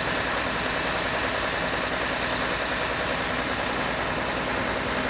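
Steady, unbroken noise with a low hum: a running engine.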